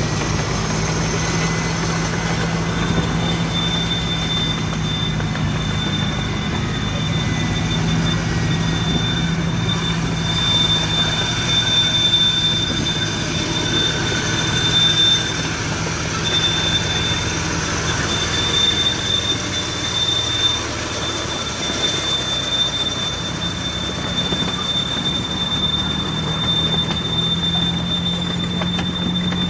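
Miniature railway train running along its track: a steady low engine hum with wheel and rail noise, and a thin high squeal that sets in a few seconds in and carries on with brief breaks. The hum eases about two-thirds of the way through and picks up again near the end.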